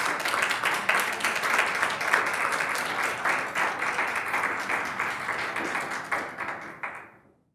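Audience applauding in a theatre: a dense, even patter of many hands clapping, which fades away near the end.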